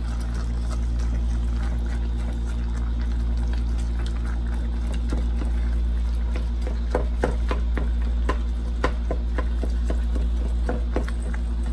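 A spoon stirring and breaking up ground beef in a metal rice pot on an electric stove, scraping and knocking against the pot several times a second from about five seconds in, over a steady low hum.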